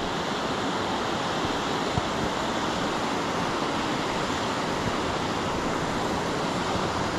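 Steady rush of river rapids, white water pouring over rocks.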